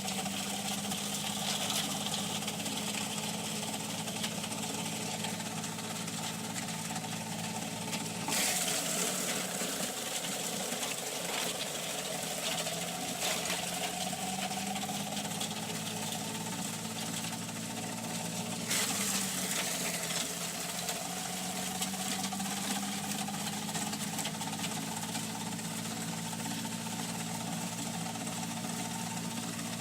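An engine running steadily. About eight seconds in and again near nineteen seconds, a loud hiss starts suddenly and the engine's pitch dips, then slowly climbs back.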